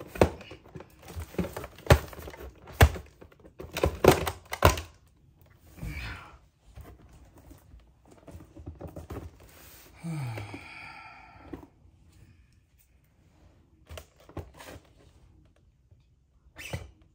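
Handling noises from unpacking a collectible doll and its packaging: a quick run of sharp clicks and knocks in the first five seconds, then scattered knocks. A short low voice sound falls in pitch about ten seconds in.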